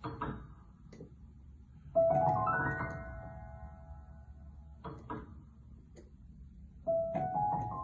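Solo piano playing: a quick rising arpeggio whose notes pile up and ring on together, once about two seconds in and again near the end, with a few short, softer chords between.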